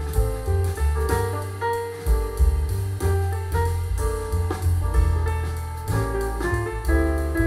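Jazz music played back through a pair of Audiolab Symbol two-way bass-reflex tower loudspeakers and picked up by a microphone in the room, with a strong, moving bass line under the tune.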